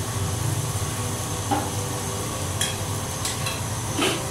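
Ghee sizzling on a paratha on a hot tawa as it is spread with a metal spoon, with a few short scrapes of the spoon against the paratha and griddle.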